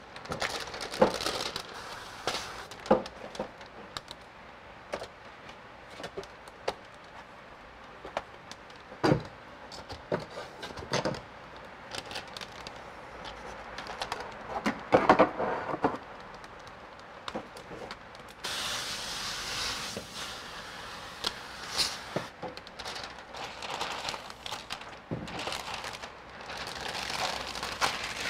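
Plastic window tint film being handled: crackling and crinkling as its clear release liner is peeled off, with sharp snaps. About two-thirds of the way through, a steady hiss sets in.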